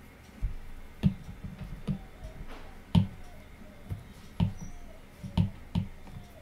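Stylus tapping and stroking on a tablet's glass screen while erasing in a drawing app: irregular light taps, each with a dull knock, a dozen or so over a few seconds.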